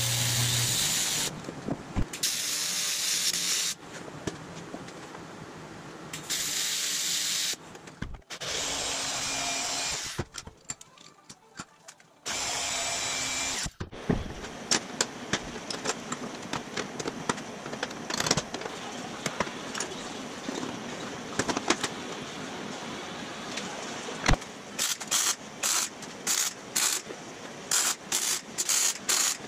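TIG torch tack-welding aluminum body panels: five separate welds, each one to two seconds of steady hiss that starts and stops abruptly. Then metal and tools are handled with scattered clicks, and near the end comes a rapid run of short arc-welding bursts, about two or three a second.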